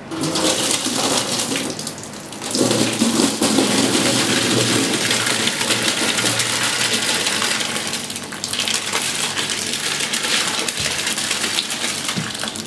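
Thick steak and ale ragout pouring and splashing from a tilted kettle into a stainless steel tray, a continuous gushing pour. It eases briefly about two seconds in and again around eight seconds.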